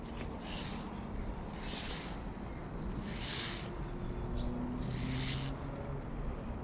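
Soft rustling swishes about every second and a half as a spinning rod and reel are worked to retrieve a surface lure, with a brief high chirp about four and a half seconds in.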